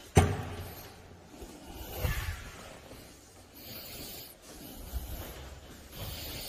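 Cardboard delivery box being handled: one sharp knock, then hands rubbing and shifting against the taped cardboard in scattered rustles and scrapes.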